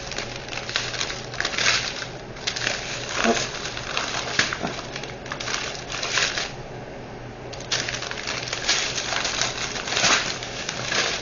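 Small plastic bags of diamond-painting drills crinkling and rustling as they are handled, in a string of short rustles and clicks with a pause of about a second past the middle.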